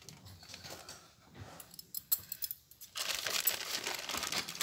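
Plastic courier mailer bag crinkling as it is handled, with a few light clicks; the crinkling gets louder and denser about three seconds in, as the bag is gripped to be cut open with scissors.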